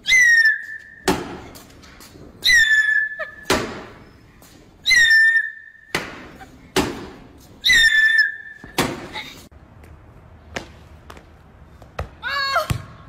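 A squeaky toy swung and struck four times: each time a whistle-like squeak of about a second, dropping slightly in pitch, is cut off by a sharp smack.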